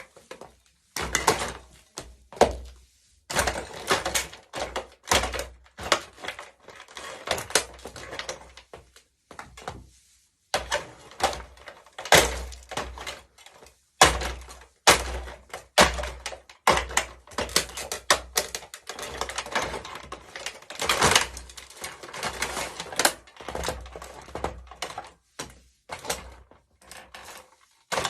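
Plastic body of a remote-controlled toy car being stamped on and crushed under high heels: irregular sharp knocks, cracks and crunching snaps, in quick clusters with brief pauses.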